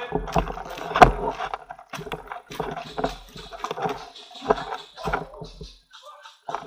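Footsteps of a person walking at about two steps a second, with rustling, and one sharper knock about a second in.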